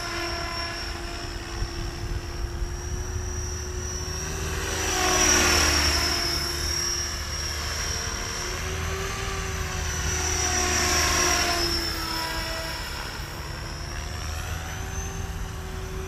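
KDS Innova 550 electric RC helicopter in flight, its motor and gears whining steadily over the thrum of its short 520 mm main rotor blades. The sound swells louder twice, about five seconds in and again about eleven seconds in, the pitch bending as it does.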